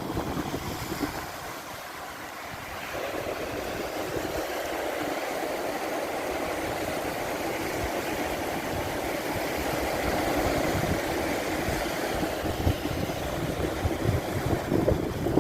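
Sea water rushing steadily, with wind buffeting the microphone. The water sound swells about three seconds in and holds, and the wind gusts grow stronger near the end.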